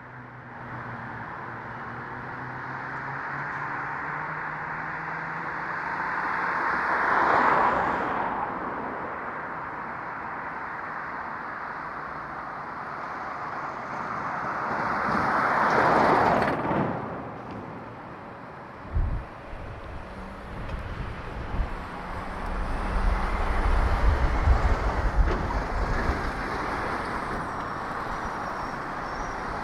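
Street traffic heard from a moving bicycle: two vehicles pass, each a rushing noise that swells and fades, about 7 and 16 seconds in. In the second half an irregular low rumble with sharp knocks sets in.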